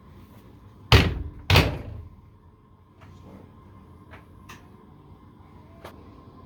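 Two loud thuds about half a second apart, the door of a Whirlpool Duet front-load washer being pushed shut, followed by a few light clicks.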